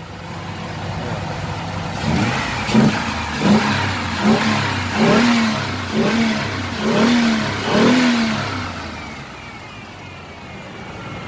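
Ford Explorer's 4.0-litre OHV V6, running on natural gas through a Flowmaster exhaust, idling and then blipped about seven times in quick succession, each rev rising and falling, before settling back to idle. It runs free of knock.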